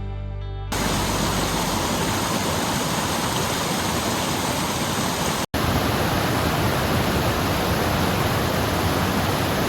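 Steady rush of running water, a dense even hiss that sets in as a music passage ends just under a second in, with a brief cut to silence about five and a half seconds in.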